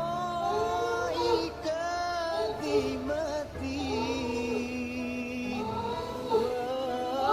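Music with a singing voice: a gliding sung melody over long held low notes.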